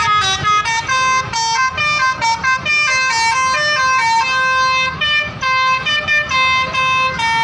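Basuri telolet musical horn on a tour bus playing a melody: a quick, unbroken run of loud, bright notes, each held a fraction of a second, stepping up and down in pitch.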